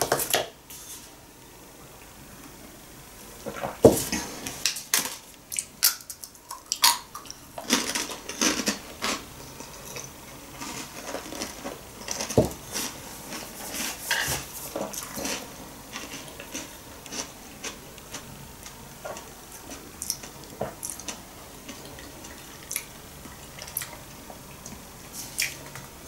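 Tableware clattering: a spoon knocking and clinking against ceramic bowls and cups, in scattered short clicks that come thick a few seconds in and thin out after the middle.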